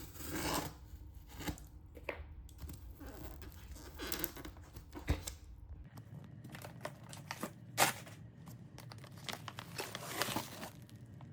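Paper or plastic packaging crinkled and torn by hand: a steady run of rustling with many sharp crackles.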